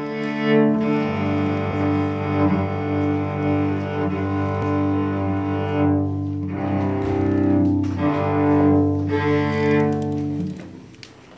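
Cello bowed in long sustained notes, then the playing stops about ten and a half seconds in.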